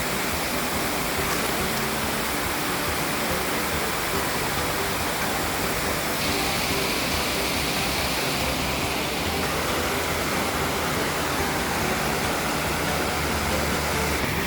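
Stream water rushing in a steady, even hiss.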